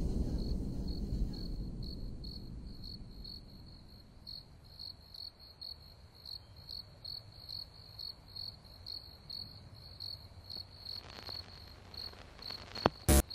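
A cricket chirping steadily, about three chirps a second, while a low rumble dies away over the first few seconds. A short sharp knock comes near the end.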